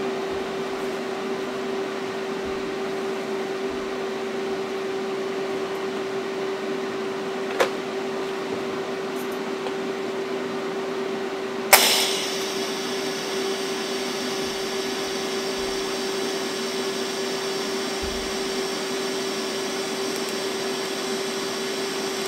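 A steady machine hum with one constant tone over an even hiss. A sharp click comes about a third of the way in, and a louder click a little past halfway, after which a higher hiss joins the hum.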